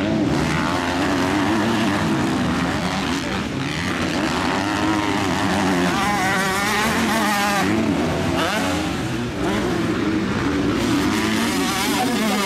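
Motocross bikes' engines revving on a dirt track, the engine notes rising and falling as riders go through the jumps and bends.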